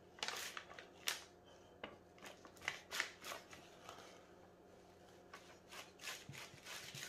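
Knife slicing and scraping silver skin off a slab of beef short ribs, with the plastic sheet under the meat crinkling: short, irregular scratchy strokes in two bouts, the second starting about five seconds in.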